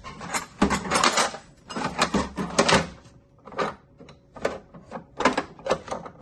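Metal drawer of a Craftsman tool chest sliding open, then screwdrivers clattering and clicking against each other as a hand sorts through them. The clatter is dense for the first few seconds, then thins to single clicks.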